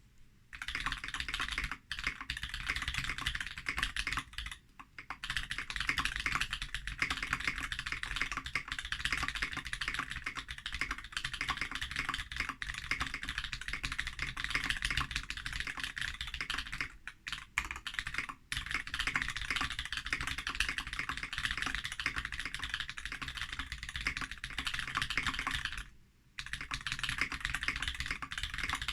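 Fast, continuous typing on a Foxlabs Key65 mechanical keyboard with Krytox 205g0-lubed Holy Panda tactile switches and Durock stabilisers on a coated aluminium plate, broken by a few brief pauses.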